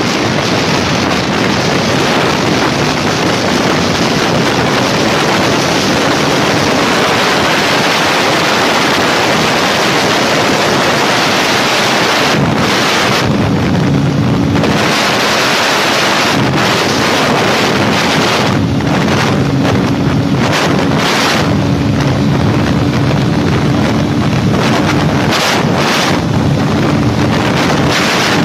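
Heavy wind buffeting a helmet or body-mounted microphone on a Honda CBR250R at highway speed. The bike's single-cylinder engine drones steadily underneath and comes through more clearly about halfway in and again in the second half, where the wind rush briefly eases.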